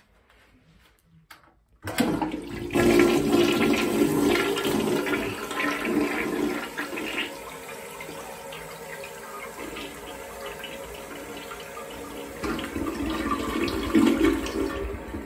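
A 1991 American Standard Yorkville toilet flushing. A sudden rush of water starts about two seconds in and stays loud for several seconds while the bowl swirls. It then settles to a quieter steady run of draining and refilling water, with a brief swell just before the end.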